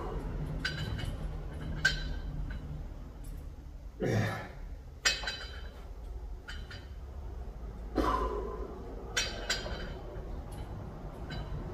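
Cable machine weight stack clinking during triceps pushdowns, several short metallic clinks, with hard effortful breaths from the lifter. One breath about four seconds in falls in pitch, and another comes near eight seconds.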